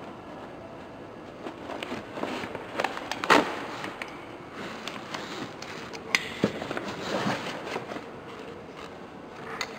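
Softbox fabric rustling while its support rods are handled and fitted into the corner flaps and speed ring, with scattered clicks and knocks; the loudest knock comes a little over three seconds in.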